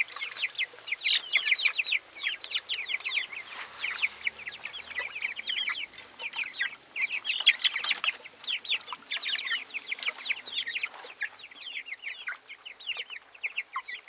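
A flock of young white chickens peeping without a break, a dense chorus of short, high, falling cheeps.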